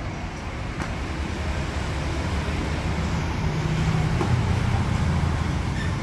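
Street traffic: a steady low rumble of passing vehicles, swelling a little past the middle as one engine draws nearer, with a faint click under a second in.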